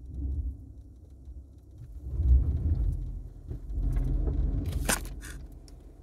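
Low, steady rumble inside a car cabin, swelling twice. Near the end come a few short rustles and knocks, like the phone rubbing on clothing as it is moved.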